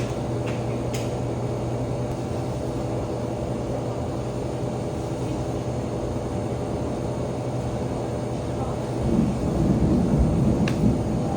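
Thunder rumbling, a louder low roll swelling about nine seconds in and lasting about two seconds, over a steady low hum and rumble.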